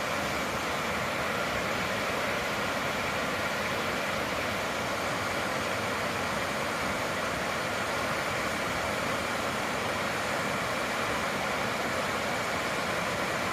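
Waterfall rushing steadily, an even roar of falling water with no change.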